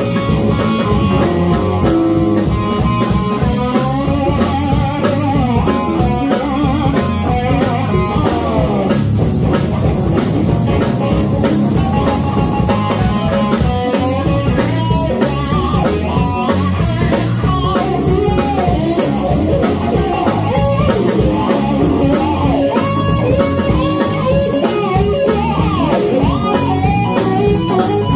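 Live rock band playing: an electric guitar plays lead lines with bent, wavering notes over bass guitar and a drum kit.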